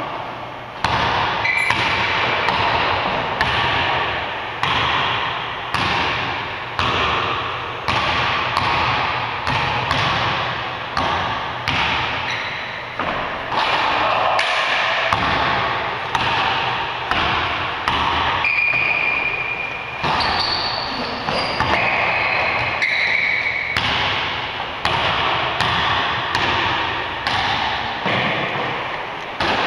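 A basketball dribbled on a hardwood gym floor, about one bounce a second, each bounce echoing in the large hall. A few short high squeaks of sneakers on the floor come in now and then.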